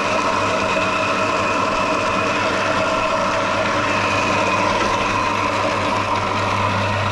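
Single-cylinder stainless-steel soybean dehulling machine running steadily, a constant hum with a higher whine.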